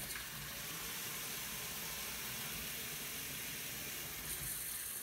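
Cold water running steadily from a kitchen tap into a plastic spray bottle as it fills.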